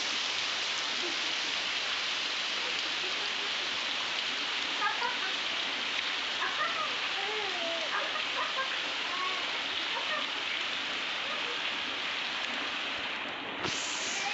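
Steady heavy rain falling and pattering on the ground and roofs, an even hiss with no let-up.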